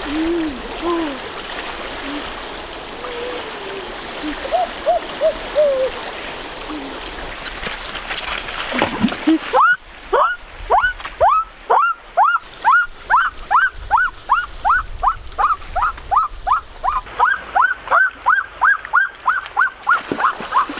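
River water running, with a few short pitched calls over it. About ten seconds in the water sound drops away and a long, even run of short calls begins, each falling in pitch, about three a second.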